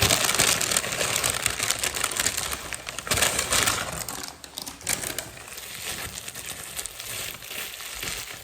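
Packaging crinkling and rustling as an item is unwrapped by hand: a dense run of small crackles, louder for the first half and softer after.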